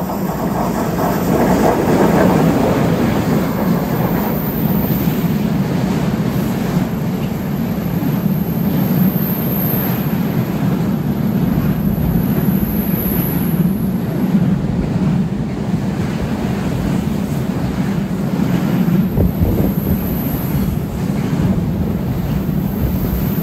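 Heavy freight train hauled by an electric locomotive passing close below. The rumble swells to its loudest about two seconds in as the locomotive goes by, then a long line of tank and container wagons rolls past steadily on the rails.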